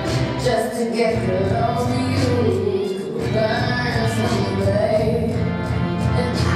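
Recorded song with a woman singing a melody over instrumental backing.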